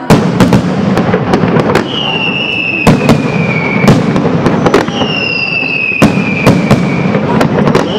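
Professional fireworks display: a rapid, irregular series of sharp bangs from shells and single shots bursting. Twice, a long whistle falls slowly in pitch, each lasting about two seconds.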